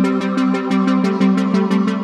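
Electronic background music with a fast, steady beat over sustained synthesizer notes.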